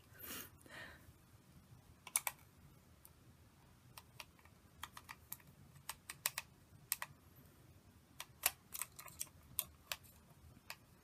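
Small jewelry screwdriver working at a stuck screw in a plastic toy's casing: scattered, irregular sharp clicks as the tip slips in the deformed, stripped screw head. A brief rustle comes at the start.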